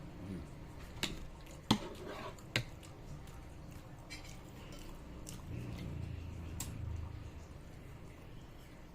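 Spoon clinking against a bowl of noodle soup while eating, three sharp clinks in the first three seconds, followed by softer, low eating noises.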